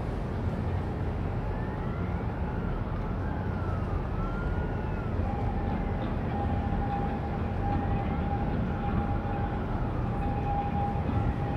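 Steady low hum and rumble of a large container ship's machinery as the ship passes close by. Over it run faint rising and falling siren-like wails, and from about five seconds in a steady high tone.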